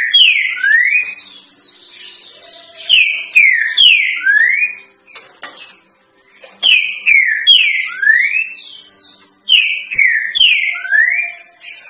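Green-winged saltator (trinca-ferro) singing its three-note 'boi' song: loud whistled phrases of three slurred notes, two falling and one rising, repeated roughly every three seconds.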